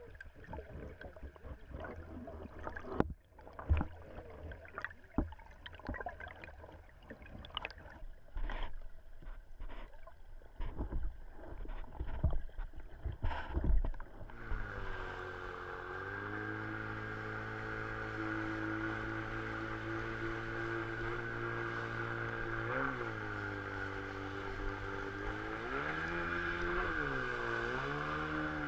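For about the first half, the sound is heard underwater beneath an inflatable boat's hull: muffled water wash with many sharp knocks and clicks. It cuts to the boat's jet outboard motor running steadily as it goes up a shallow river. The motor's pitch dips and rises about two-thirds through and again near the end as the throttle changes.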